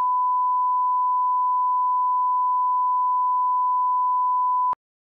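Broadcast line-up test tone: a single steady 1 kHz pure tone, the reference tone played with colour bars, cutting off suddenly with a faint click near the end.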